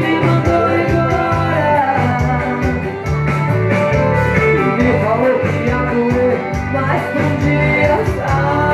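Amateur singing into microphones over amplified music with a steady beat, the voice sliding through a slow, heartfelt melody.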